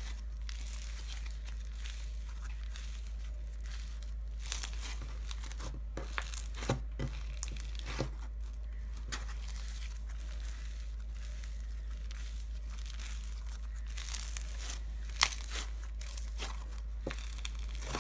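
Crunchy slime made with instant snow being stretched, folded and squeezed by hand, crackling and crinkling, with a few sharper pops about five to eight seconds in and one loud pop near the end.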